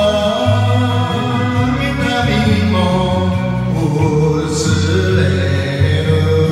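A man singing a Japanese song into a microphone over a karaoke backing track.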